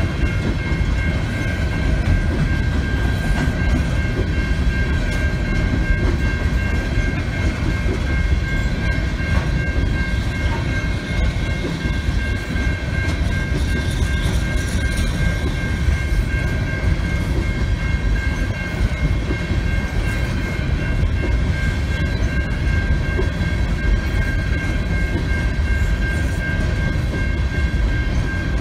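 Union Pacific coal train's hopper cars rolling steadily past: a continuous low rumble of steel wheels on rail. A steady high-pitched tone sounds over it throughout.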